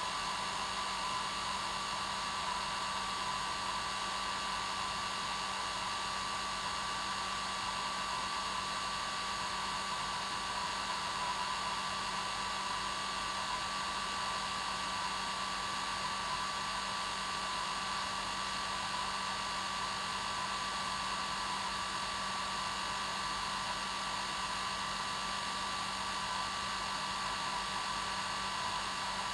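Hair dryer running steadily on its normal setting: an even rush of air with a steady whine from the motor and fan.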